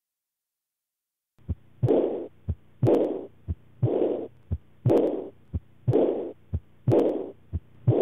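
Recorded heart sounds of aortic regurgitation, starting after about a second and a half of silence: a regular heartbeat of about one beat a second, seven cycles. Each second heart sound is followed by a blowing decrescendo diastolic murmur that fades before the next first heart sound, the sign of blood leaking back from the aorta into the left ventricle.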